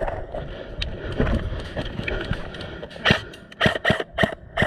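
Airsoft electric rifle (AEG) firing a string of about six single shots in the last second and a half, each a sharp crack a third to half a second apart, after a few seconds of low outdoor rustle.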